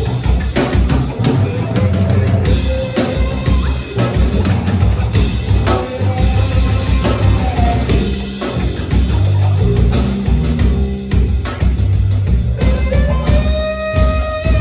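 Live band playing a rock groove: drum kit with a pounding kick drum, bass and guitar. Near the end a long, steady held note comes in over the beat.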